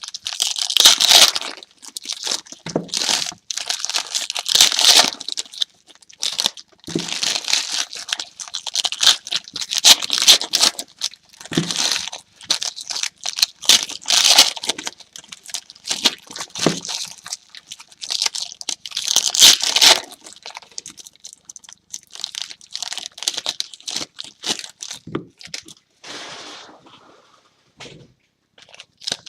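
Wrapping being torn and crinkled as a box of Topps Premier Gold trading cards is opened, in irregular bursts with a few soft knocks.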